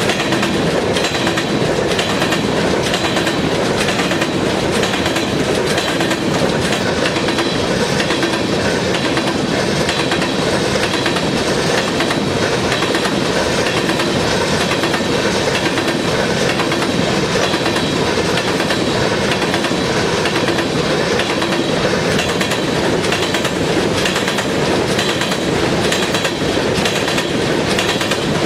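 Freight train of open-top hopper cars rolling past close by: a steady rumble of steel wheels on rail with a running clickety-clack of wheels over rail joints.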